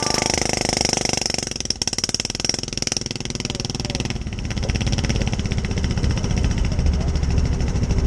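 Golf cart engine running with a rapid, even beat as the cart drives up the trail, growing stronger in the low end about halfway through. Music fades out in the first second or so.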